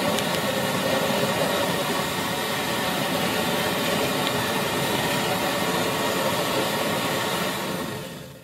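Petrol pressure burner of an NVA field kitchen running smoothly with a steady rushing noise, then dying away just before the end as the fuel is shut off at the tank valve.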